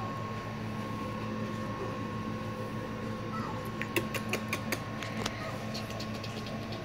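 Steady low hum with a thin high tone over it, and a quick irregular run of sharp clicks about four seconds in, followed by fainter ticks near the end.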